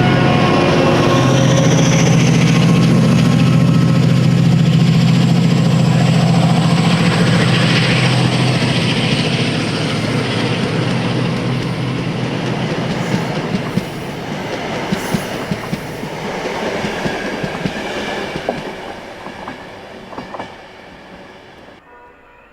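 A Class 68 diesel-locomotive train with Mk3 coaches runs past and away. Its engine drone and a high whine that rises in pitch are loud at first, then fade steadily, with wheels clicking over rail joints as it recedes.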